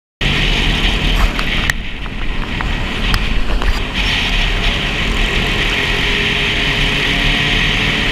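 Motorcycle riding at road speed, heard through a helmet camera: steady wind rush over the microphone with engine rumble underneath, plus a few sharp clicks in the first few seconds. The sound cuts in abruptly just after a moment of silence.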